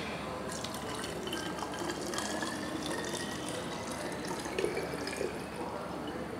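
Homemade disinfectant of isopropyl alcohol, water and eucalyptus oil poured in a thin stream from a measuring jug into a bottle, the pitch slowly rising as the bottle fills. A couple of louder splashes come near the end, and then the flow stops a little after five seconds in.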